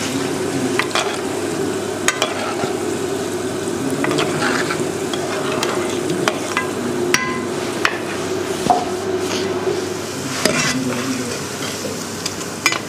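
Gulab jamun balls deep-frying gently in oil on low heat, a steady sizzle and bubble, while a metal spoon stirs and swirls the oil so they brown evenly, clinking sharply against the pan about eight times.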